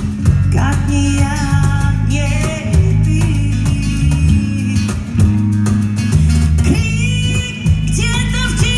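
Band music with a heavy bass line and guitar, under a wavering lead melody that comes and goes.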